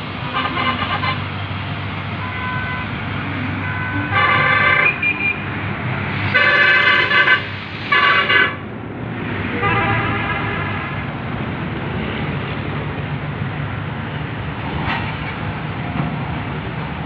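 Passenger coaches rolling slowly past on the rails with a steady rumble, while a horn blows about five short blasts in the first ten seconds or so.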